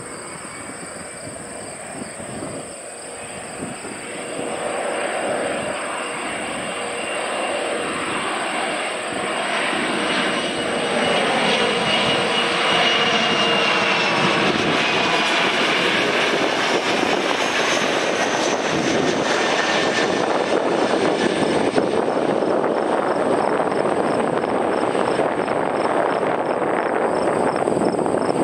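Bombardier CRJ-900 regional jet's two rear-mounted turbofans on a landing approach: the whine grows louder and drops in pitch as the jet passes, then gives way to a steady loud rush of jet noise as it rolls out on the runway.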